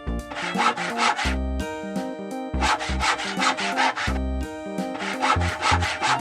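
Background music: sustained pitched notes over a repeating bass pattern, with three stretches of fast scraping, rasping strokes.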